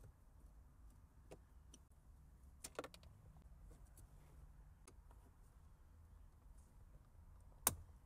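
Near silence with a few faint clicks and taps from a screwdriver and the plastic center-console trim as its Phillips screws are worked out. There is a quick pair of clicks a little under three seconds in and one sharper click near the end.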